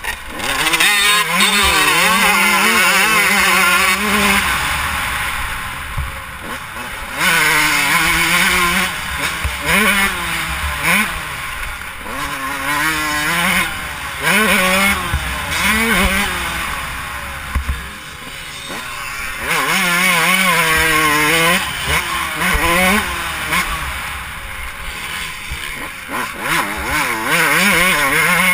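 Dirt bike engine racing around a motocross track, heard close from a camera on the bike: repeated runs of hard revving with the pitch rising through the gears, broken by several quieter lulls where the throttle is shut off.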